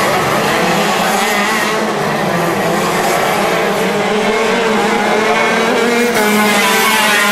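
Several kart engines running at high revs as a pack of racing karts laps the circuit, their pitches rising and falling through the corners. They get a little louder near the end as one kart passes close.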